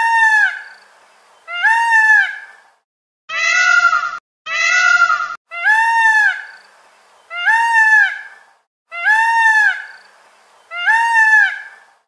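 Peacock calling over and over: loud, high calls about a second long, each rising then falling in pitch, repeated every one and a half to two seconds. Two calls in the middle sound duller and carry a faint low hum.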